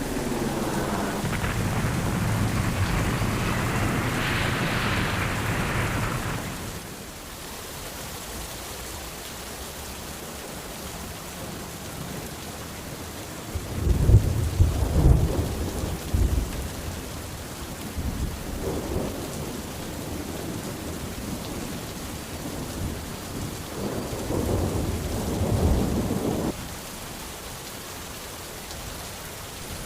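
Thunderstorm: steady rain with thunder rumbling. A long rumble in the first six seconds stops abruptly, then after a stretch of rain alone come several more rumbles with deep cracks, the loudest about halfway through and the last cutting off abruptly a few seconds before the end.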